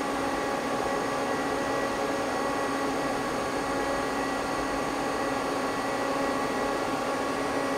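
Steady hum of a powered-up Mazak CNC lathe standing idle: an even noise with several constant tones through it.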